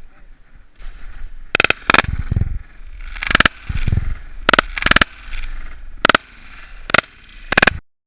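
A volley of about eight shotgun blasts from several hunters firing at geese, irregularly spaced over six seconds, some with a low boom after the crack.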